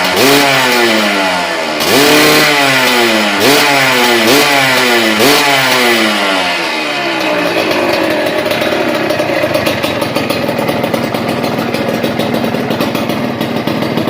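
Suzuki TS125 single-cylinder two-stroke engine breathing through a stainless Triton RS-5 aftermarket exhaust: the throttle is blipped about five times, each rev rising quickly and falling back, then it settles to a steady, rapid idle.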